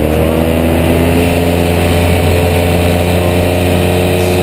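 Paramotor engine running steadily at high throttle, with propeller and wind noise; its pitch edges up in the first half-second and then holds.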